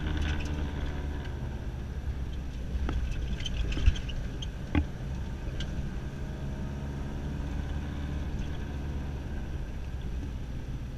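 Steady engine and tyre rumble heard inside a moving car's cabin, with two brief thumps about four and five seconds in.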